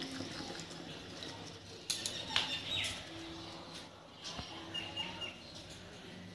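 Birds chirping in the background: a few short falling chirps and brief high notes, with a couple of light clicks over a quiet hum.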